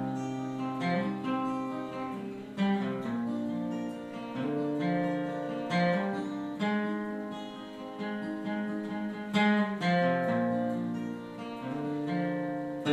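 Acoustic guitar with a capo, strummed and picked through a slow country chord progression in an instrumental break between sung lines, the chords changing every second or two.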